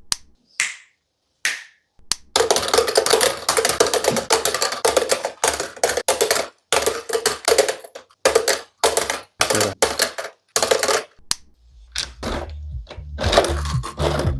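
Plastic LEGO pieces clicking and rattling in quick runs of sharp clicks, with music coming in near the end.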